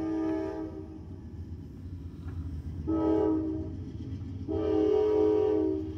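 Norfolk Southern freight locomotive's multi-chime air horn sounding three blasts: one about a second long at the start, a short one about three seconds in, and a longer one near the end. Under the blasts, the locomotive's diesel engine rumbles steadily as it passes.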